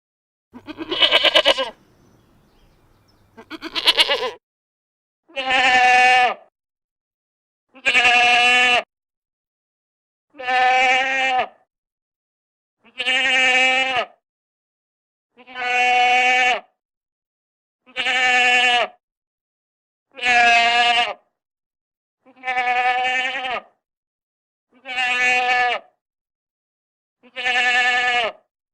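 Goat bleating: about a dozen calls, each about a second long, with short silences between. The first two are rough and quavering, and the rest are near-identical and evenly paced, about one every two and a half seconds.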